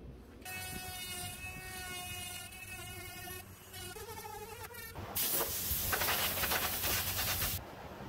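Dremel rotary tool with a router attachment cutting a hole through the car's hood: a steady high whine whose pitch drops about three and a half seconds in, then a louder, harsh grinding for about two and a half seconds that stops abruptly.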